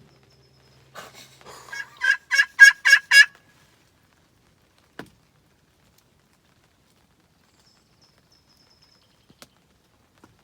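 Turkey yelps: a quick run of about six pitched calls, getting louder, lasting just over a second. A single click follows a couple of seconds later.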